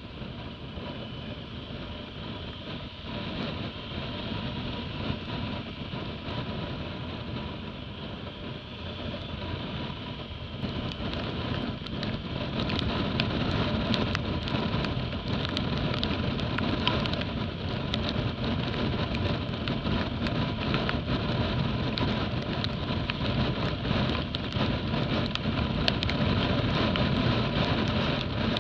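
Motorcycle riding on a wet road: engine running under wind and tyre noise on the bike-mounted microphone, growing louder about ten seconds in as speed picks up. From then on there is a dense crackle of sharp ticks.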